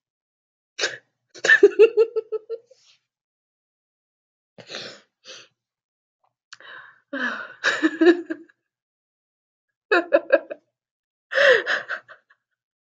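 A woman's quiet, breathy laughter in an uncontrollable fit: about six short bursts with pauses between, some broken into quick pulsed laughs, with gasping breaths. One burst near the end slides down in pitch.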